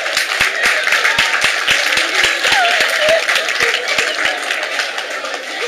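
Audience applauding, clapping together to a steady beat of about four claps a second that stops about four seconds in, with a few voices calling out over it.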